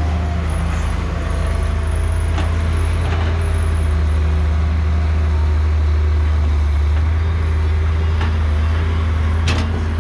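Tracked excavator's diesel engine running steadily while the arm swings and the bucket digs, with a few knocks, the sharpest near the end.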